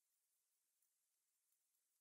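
Near silence, broken only by a couple of very faint ticks.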